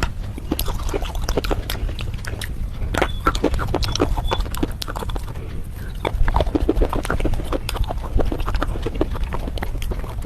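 Red slate and clay paste being bitten and chewed: many irregular, sharp crunches and clicks at close range over a low rumble.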